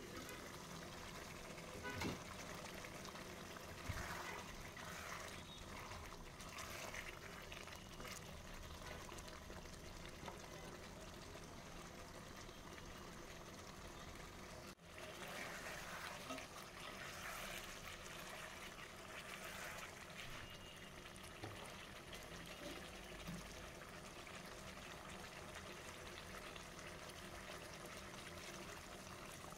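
Beef and potato curry simmering in a pot, a soft steady bubbling hiss, with two light knocks about two and four seconds in.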